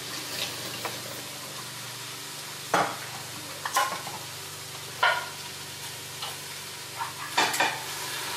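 Kitchen tap water running with a steady hiss while bean cans are rinsed, broken by four or five sharp knocks as the cans are handled.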